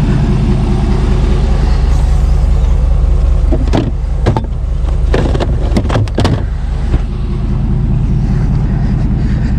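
A vehicle engine idling with a steady low rumble, with several short knocks about halfway through.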